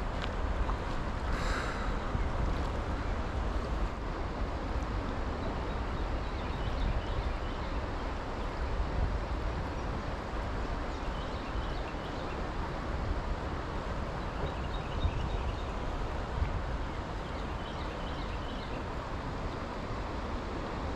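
Steady rushing of river water mixed with wind on the microphone, with a short hiss about a second and a half in.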